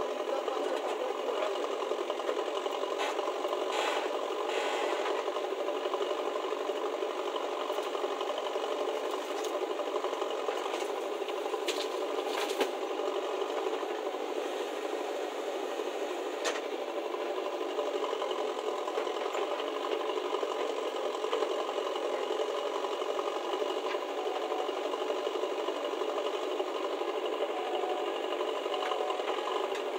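A JCB backhoe loader's diesel engine running steadily under work, with a mechanical rattle throughout. A few sharp knocks come as the loader bucket tips soil into a tractor trailer, one about twelve seconds in.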